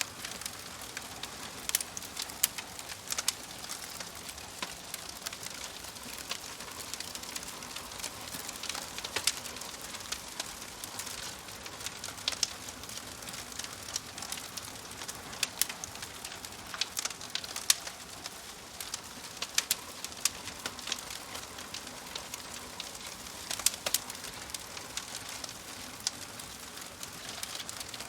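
Wood fire crackling in a wood-burning stove: irregular sharp pops and snaps, several a second, over a steady soft hiss of burning.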